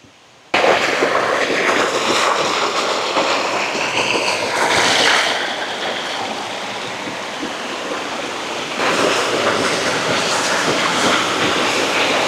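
Small rocky forest stream cascading over stones: a steady rush of running water that starts abruptly about half a second in and gets louder from about nine seconds in.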